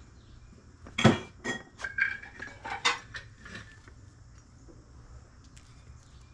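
Porcelain and ceramic pieces clinking and knocking as a cat-shaped teapot is set down and a ceramic canister is picked up among mugs on a table: one sharp knock about a second in, the loudest, then several lighter clinks with a short ring over the next two seconds, and then only faint room noise.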